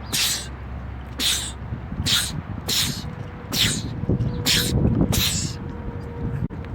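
A man sneezing over and over in quick succession: about seven short, hissing sneezes, each under a second apart, over a steady low rumble.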